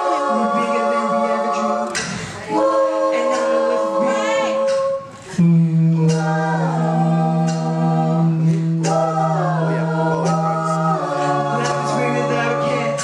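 Mixed-voice a cappella group singing close harmony through microphones, with sustained stacked chords. After a brief break about five seconds in, a deep held bass note comes in under the harmony.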